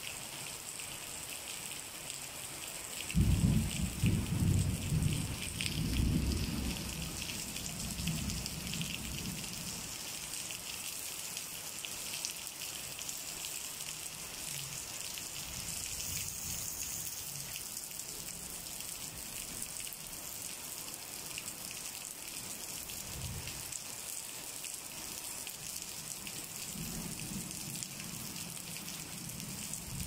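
Steady rain falling, with a loud roll of thunder that begins suddenly about three seconds in and rumbles away over several seconds. Fainter thunder rumbles come again later and near the end.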